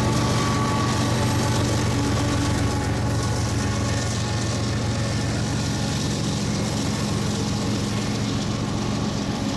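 BNSF diesel locomotive running steadily as it moves off along the track, a continuous low engine drone with a fainter steady whine above it.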